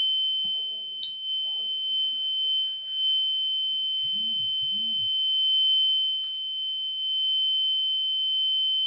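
Electronic alarm buzzer on an Arduino fire-sensor circuit sounding one continuous high-pitched tone, the fire alarm set off by the flame sensor.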